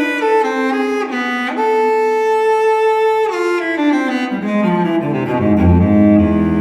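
Background music of bowed strings: a melody moves in short notes, holds one long note, then falls into low, sustained notes near the end.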